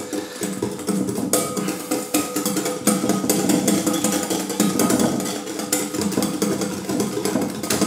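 Wire balloon whisk rapidly clattering against the sides of a glass mixing bowl, beating egg yolks with sugar and cornflour into a custard base.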